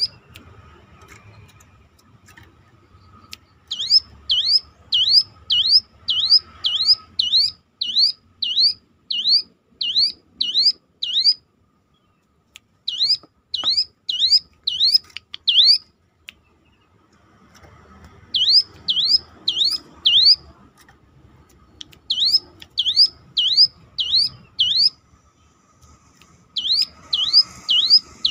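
Ciblek gunung (cigun), a prinia, singing its siren-like call: quick series of high swooping notes, about two a second, in runs of a few seconds with short pauses between.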